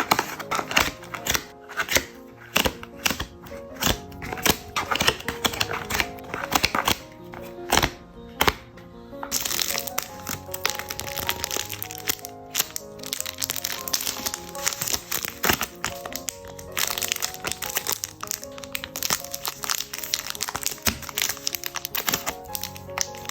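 Plastic packaging for photocards being handled, crinkling and crackling with many sharp clicks and taps, busier and brighter from about a third of the way in, over background music.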